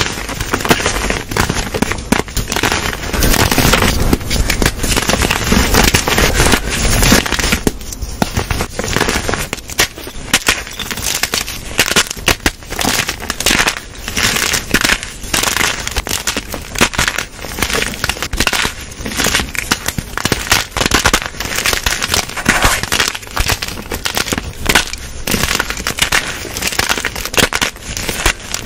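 Blocks of gym chalk crushed and crumbled between the hands over a tray of chalk powder: dense, continuous crunching and crackling as the chunks snap apart and grind into powder.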